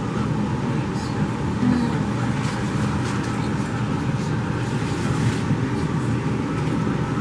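Steady rushing noise of a ventilation fan, even and unbroken.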